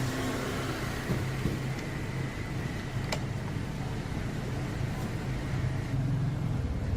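Steady hum of a running machine with a thin high whine over it, and one sharp click about three seconds in.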